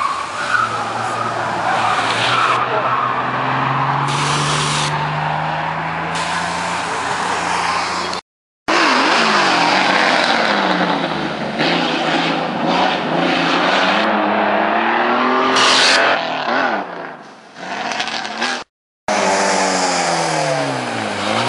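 Historic rally cars, Porsche 911s among them, driven hard through a bend one after another, their engines revving up and falling away through the gears. The sound cuts out abruptly twice between cars.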